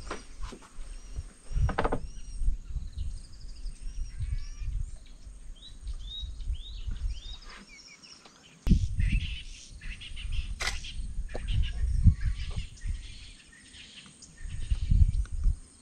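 Wild birds calling: a run of short, arching whistled notes repeated again and again, busier and more jumbled in the second half. Under them is a low, uneven rumble.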